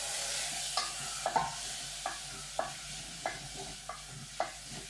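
Mushrooms sizzling in hot butter and flour in a frying pan, the sizzle starting at once and slowly easing, while a spatula stirs them and taps the pan about every half second.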